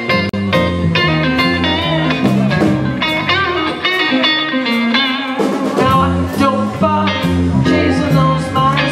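Live band playing a bluesy rockabilly tune: an electric guitar lead with bent, wavering notes over a walking bass line and drums with cymbal hits. The bass drops out for about two seconds around the middle, then comes back in.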